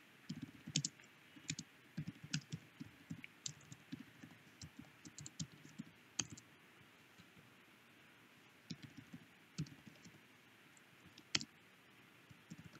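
Computer keyboard typing: quick irregular runs of faint key clicks, a pause around the middle, then a few scattered keystrokes and one sharper click near the end.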